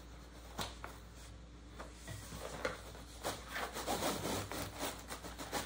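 Rubbing and scraping as a large needlepoint canvas on a wooden stretcher frame is worked out of a fabric bag too small for it. There is a sharp knock about half a second in, then repeated scraping strokes from about two seconds on.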